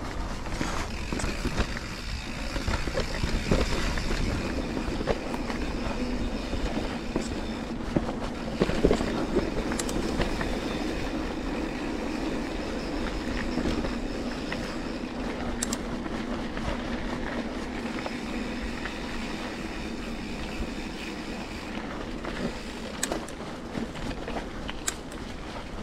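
Mountain bike riding over a rough trail: steady tyre rumble and rattling from the bike, with scattered sharp knocks.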